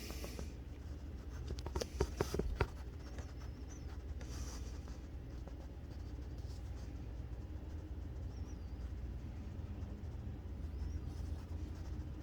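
Faint rubbing and a few sharp clicks, about two seconds in, from a hand-held phone being handled, over a low steady hum.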